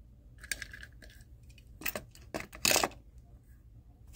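A few light clicks and clinks of small die-cast toy cars being handled against a plastic storage case, with a short rattle about half a second in and a louder clatter near the three-second mark.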